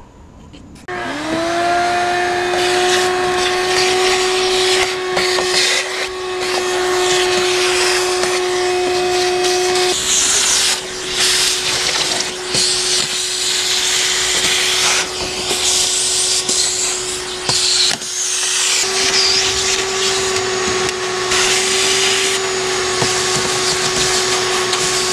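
Small canister vacuum switched on about a second in, its motor whine rising quickly to a steady pitch. It then runs loudly, the rush of air through its hose changing as the nozzle sucks dirt and leaves out of the Jeep's windshield cowl channel.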